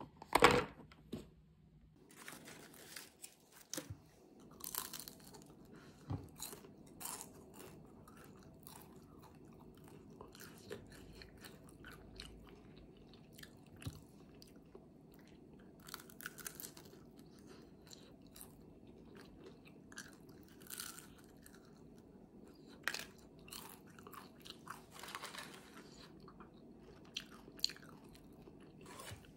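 Crunchy food being bitten and chewed close to the microphone, in irregular crunches with a few longer rustling stretches.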